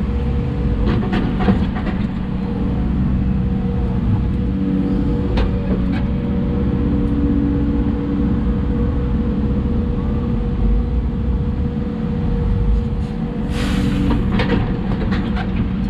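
Hidromek 140 excavator's diesel engine running steadily under working load, a deep drone with a steady hum, heard from the operator's cab. Scattered knocks and clanks of the machine working, and a short hiss about three-quarters of the way through.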